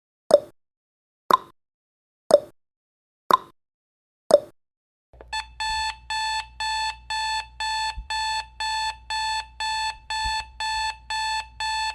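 Countdown timer sound effect: a sharp tick once a second for the last five seconds, then an alarm-clock beeping starts about five seconds in and repeats at about two beeps a second as the timer reaches zero.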